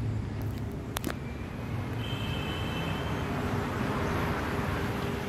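Street traffic noise: a motor vehicle running close by, its noise growing louder in the second half, with two sharp clicks about a second in.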